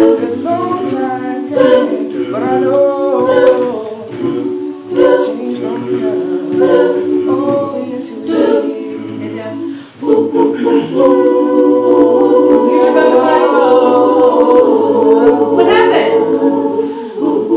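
A cappella choir of mixed young voices singing in harmony, holding chords. The singing drops away briefly about ten seconds in, then comes back with a full held chord.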